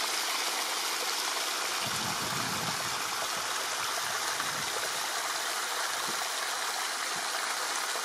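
Steady rush of running water from a stream, with a few soft low bumps a couple of seconds in.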